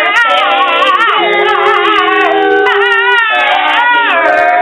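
A small dog howling along with several people who howl with it, in long wavering notes that rise and fall and overlap.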